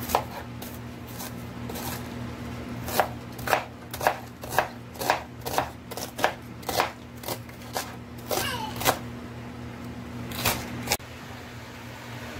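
Chef's knife chopping onion on a plastic cutting board: a run of sharp knocks, about two a second, that stops a second or so before the end.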